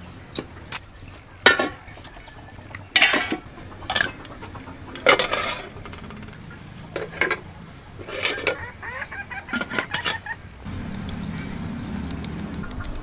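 Metal tongs and utensils clinking and clattering against stainless steel bowls, a scattered series of sharp knocks and clinks. A steady low hum comes in near the end.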